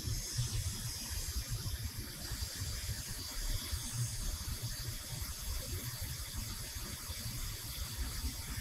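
Steady hiss over a low, uneven rumble: the background of a CNC stone router while its spindle creeps slowly on jog, with no distinct motor whine or knocks.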